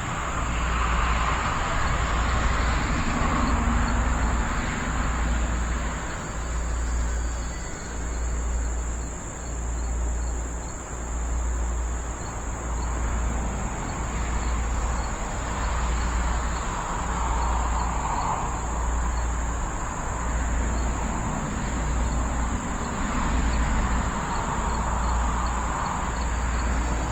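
An electric RC plane's motor and propeller humming and swelling and fading as it flies past, over wind buffeting the microphone in gusts. A steady high-pitched insect drone runs underneath.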